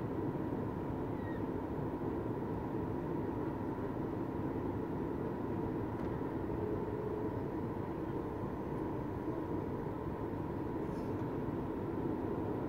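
Steady cabin noise of a Boeing 737 MAX 8 in flight on approach, heard from a window seat beside the CFM LEAP-1B engine: a continuous rush of airflow and engine noise with a low steady hum.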